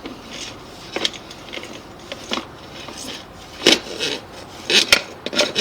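Irregular clicks and clattering knocks, about eight in all and bunched in the second half, as a sewer inspection camera and its push cable are pulled back through the drain line toward the cleanout.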